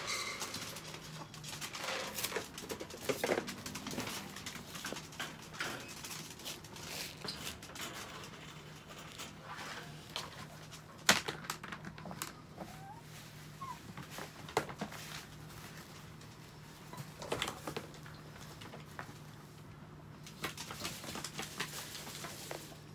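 Clicks, knocks and rustling from a plastic pet toilet tray and its sheet being handled on a plastic tarp, with one sharper click about halfway through. A steady low hum runs underneath, and a couple of brief faint squeaks come a little after the middle.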